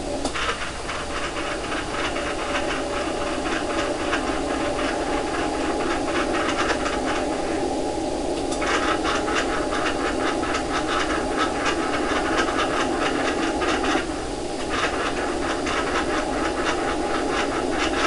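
Receiver hiss from a Yaesu FT-847 listening through a 222 MHz transverter, heard through a narrow audio filter. A faint steady tone, the K1IIG CW beacon, fades out in the first few seconds as the antenna turns off the beacon. Rapid scratchy clicking runs over it in long stretches, breaking off twice.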